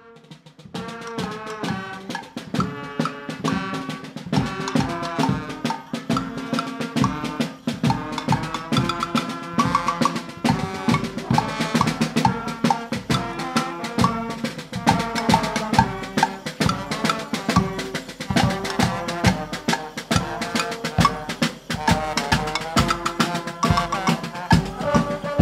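Brass and drum band music with a steady beat: held brass notes over regular drum strikes.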